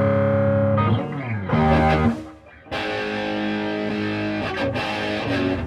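Electric guitar played with distortion: a held, ringing chord, notes sliding down about a second in, a brief drop-out, then sustained chords again.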